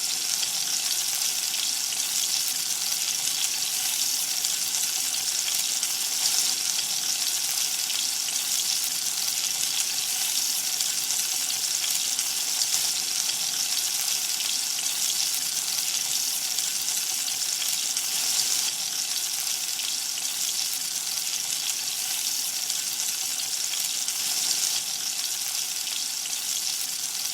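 Chicken pakodas (minced chicken and grated potato bound with gram, rice, corn and all-purpose flour) deep-frying in hot oil, with a steady, even sizzle.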